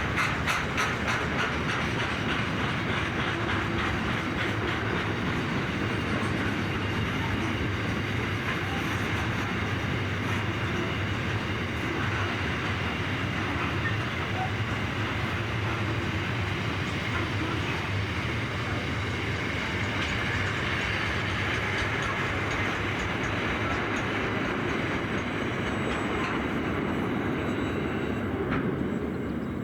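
Freight train's container wagons rolling past at speed, a steady rumble of wheels on rail, with a quick clickety-clack of wheels over rail joints at the start.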